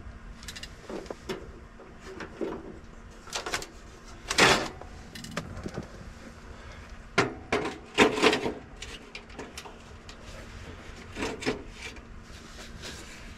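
Irregular handling noises: rustling, clicks and knocks of gear being moved about by hand, the loudest knocks about four and a half seconds in and again around eight seconds in.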